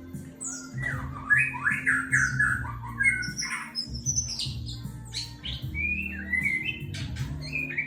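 White-rumped shama singing rapid, varied whistled and chirping phrases, over background music of steady low tones.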